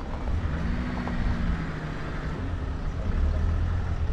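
A vehicle engine running nearby over a low, continuous rumble. Its steady hum holds for about two seconds, then fades.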